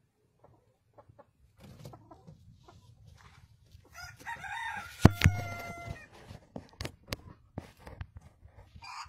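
Chickens clucking and calling at close range, with a louder drawn-out call from about four to six seconds in. Two sharp clicks come in the middle of that call, and light scuffling and knocks run underneath.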